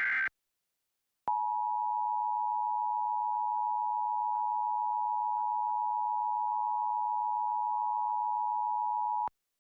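Emergency Alert System attention signal: the two-tone alarm (853 and 960 Hz sounded together), a steady tone starting about a second in and held for about eight seconds before cutting off sharply. At the very start, the last SAME digital header burst, a short raspy data screech, ends.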